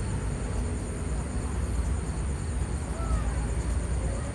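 Steady outdoor background noise dominated by a low rumble, with a few faint short sounds near the end.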